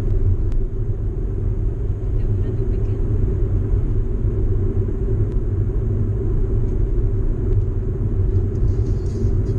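Steady low rumble of a car's engine and tyres on the road, heard from inside the cabin while driving at a steady pace.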